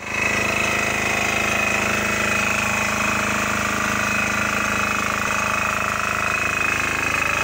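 Lutian 3 kW portable diesel generator, its 7 HP air-cooled single-cylinder diesel engine running at a steady speed, with a high steady whine over the engine note.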